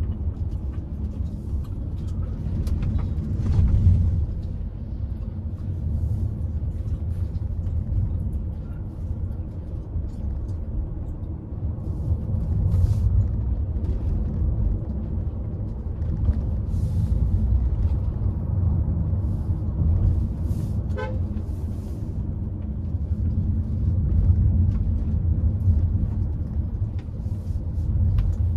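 Steady low road and engine rumble inside a moving Hyundai Creta's cabin, with a few faint clicks.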